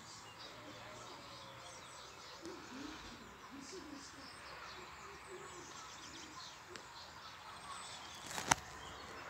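Birds chirping faintly over steady outdoor background noise, with one sharp click about eight and a half seconds in.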